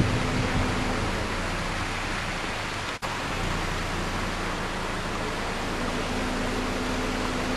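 Steady rushing noise with a low hum underneath, typical of a vehicle's cabin while driving along a road. The sound drops out for an instant about three seconds in.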